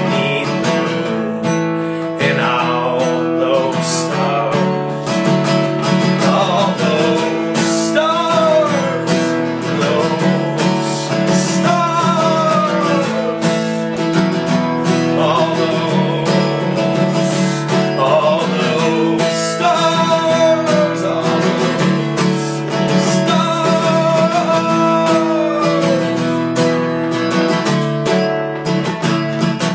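Acoustic guitar strummed steadily in an instrumental passage of a folk song, with wordless sung phrases gliding in and out about every four seconds.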